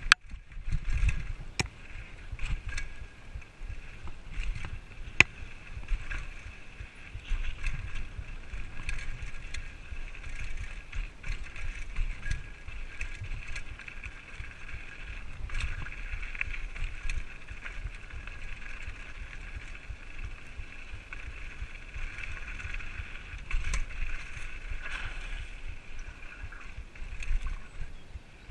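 Whyte 801 hardtail mountain bike ridden over a rough dirt path: tyres rolling over the ground and the bike rattling under a shifting low rumble, with sharp knocks over bumps, the loudest about five seconds in.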